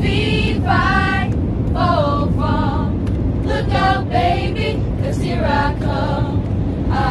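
A choir of young voices singing unaccompanied in short phrases inside an airliner cabin, over the steady low noise of the aircraft.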